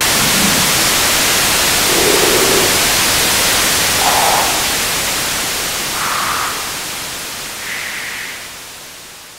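Loud white noise running through a hardware graphic equalizer. One band after another is boosted on the sliders, so a brighter hiss steps upward in pitch from low to high about every two seconds. The whole sound fades down near the end.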